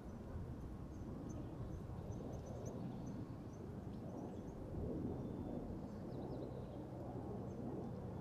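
Wind noise, low and rising and falling, with a faint steady low hum in the first half. Faint short high bird chirps come in scattered runs during the first few seconds and again about five seconds in.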